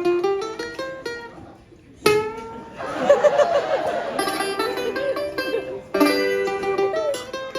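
Live band music led by quick picked notes on plucked-string instruments, with strong new strums about two and six seconds in.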